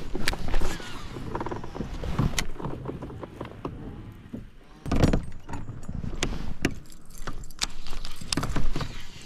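Clicks, knocks and rattles of a baitcasting rod and reel being cast and wound on a fishing kayak, with a louder thump about five seconds in.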